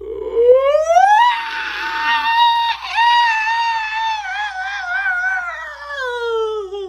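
One long human scream. It rises in pitch over the first second or so, holds high with a wavering quaver, then slowly slides down in pitch and is still sounding at the end.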